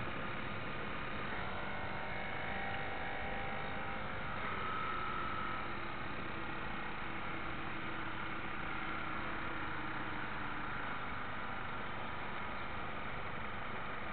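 Steady hiss and low hum from a radio-controlled model warship under way, with a faint whine from its small drive motor that drifts slightly in pitch.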